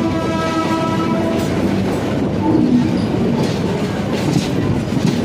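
LHB passenger coaches rolling past close by: a steady loud rush of wheel and rail noise with clickety-clack. In the first second and a half a pitched tone with several overtones sounds and fades away.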